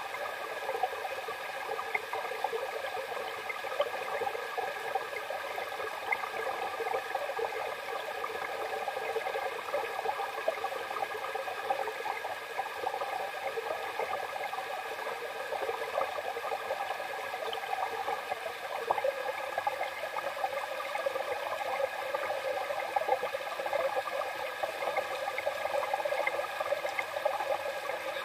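Small creek running, a steady rush of flowing water.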